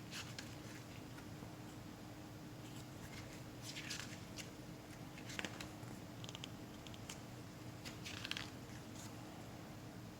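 Faint handling noises of a Blu-ray case being unboxed: a few brief rustles and small clicks, the clearest about four, five and eight seconds in, over a low steady hum.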